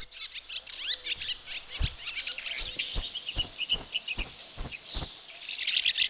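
House martins twittering, a run of short high chirps that thickens into denser chatter near the end, with soft low taps a few times a second underneath.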